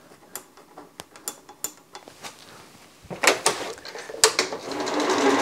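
A few scattered clicks and knocks from handling the mower's controls, then about four and a half seconds in the Toro eFlex reel mower's electric drive starts and runs up into a steady, rising whine.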